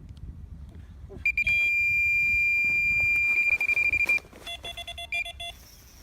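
Electronic carp bite alarm screaming: one continuous high tone for about three seconds as line is pulled off fast on a carp run, then a quick string of short beeps.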